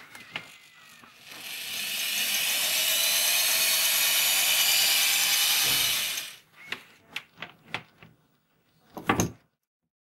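Corded electric drill running for about five seconds: the motor spins up with a rising whine, runs steadily, then winds down. A few sharp clicks follow, then a knock as the drill is handled.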